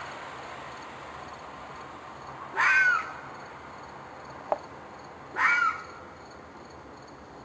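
An animal's screeching cry, called twice, each about half a second long and rising then falling in pitch. It is the tail of a call that lasted for hours, which the owner takes for a fox or coyote in distress. A short sharp click comes between the two cries.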